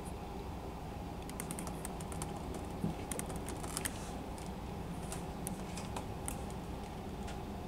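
A front-load garbage truck running steadily at a distance while it empties a dumpster over its cab and lowers it, with a scatter of light clicks and rattles from the tipping dumpster and falling trash.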